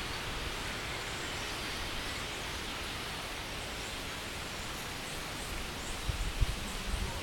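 Steady outdoor background hiss in woodland, with a few low bumps about six to seven seconds in.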